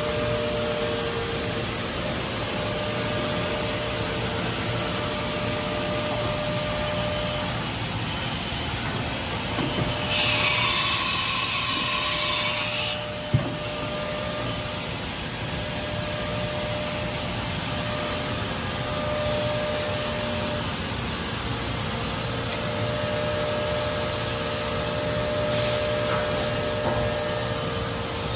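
Haas TM-1 CNC toolroom mill running under power, a steady mechanical hum with a faint whine. About ten seconds in, a louder hissing whir lasts roughly three seconds and ends with one sharp click.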